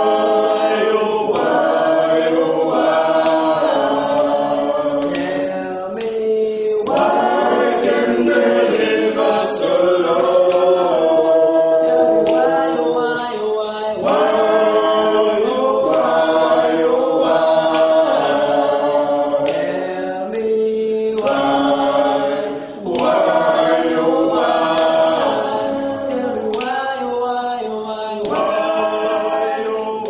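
A small group of young singers singing a cappella in close harmony, in phrases of held chords with short breaks between them.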